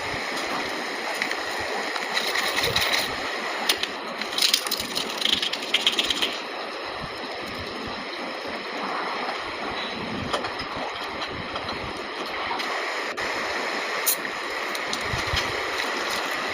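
Water running steadily, with a cluster of clicks and rattles between about two and six seconds in.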